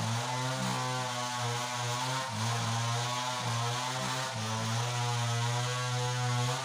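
Stihl 070 two-stroke chainsaw idling steadily, its note wavering slightly, with a few brief dips.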